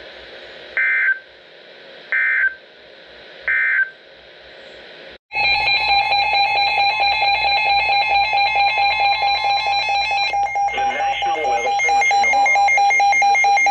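Three short bursts of Emergency Alert System digital data, the end-of-message code that closes the alert. About five seconds in, a loud continuous alert tone starts, with several steady pitches and a rippling level, and runs on.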